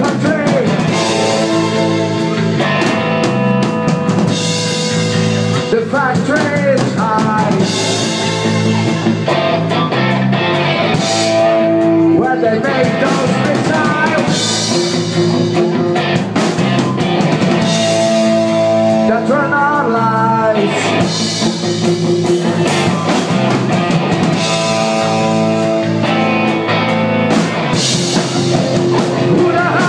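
Live post-punk rock band playing: drum kit, electric guitar, bass and synth keyboard, with a male singer coming in with sung phrases every few seconds.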